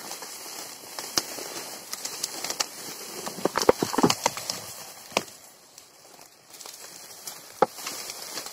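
Dry reed stems crackling and snapping as they are pushed aside by hand, a thick run of sharp cracks about four seconds in, then a short lull before more scattered cracks.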